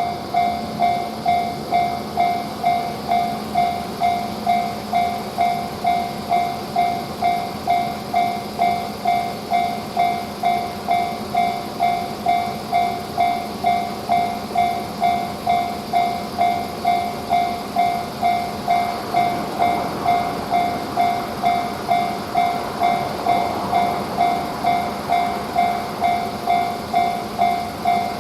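Japanese level-crossing alarm bell ringing its electronic "kan-kan", a steady ringing tone struck about twice a second. The noise of a passing train swells faintly behind it about two-thirds of the way in.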